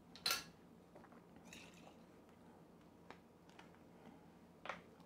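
Quiet handling of a plastic measuring spoon and an apple cider vinegar bottle: a short hiss about a third of a second in, a few faint clicks, and a sharper click near the end.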